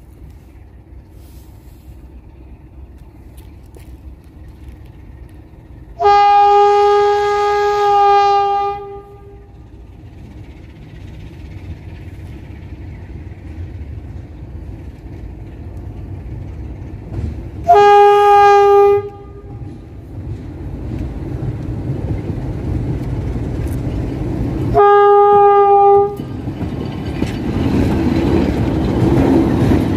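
CFR class 60 diesel-electric locomotive DA 1390 sounding its horn three times as it approaches: a long blast of nearly three seconds, then two shorter ones, each on one steady pitch. Between the blasts the locomotive's diesel engine grows louder as it nears, passing close by near the end.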